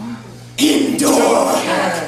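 A brief lull, then about half a second in, a sudden loud burst of several voices raised together.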